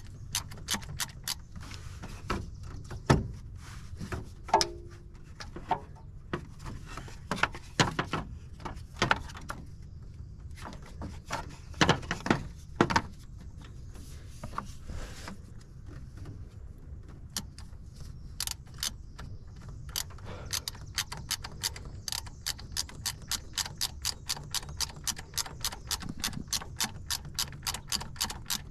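Hand ratchet wrench clicking in quick, even strokes, about three a second, from about two-thirds of the way in, as a starter mounting bolt is run in. Before that, scattered clinks and knocks of tools on metal.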